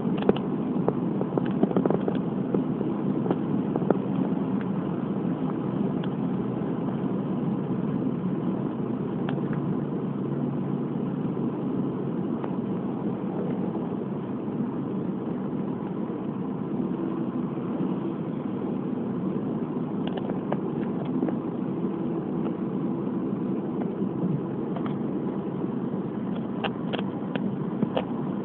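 Steady driving noise of a car on the road, engine and tyres humming evenly, heard from inside the car. A few light clicks come near the start and again near the end.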